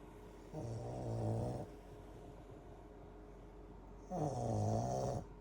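Snoring: two long, deep snores about three and a half seconds apart, each lasting about a second.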